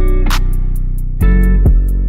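Background music: a rock track with guitar, bass and drums keeping a steady beat.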